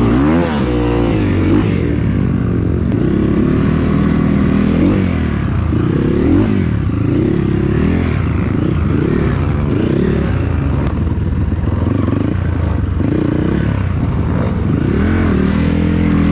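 Motorcycle engine running and revving, its pitch rising and falling again and again every second or two.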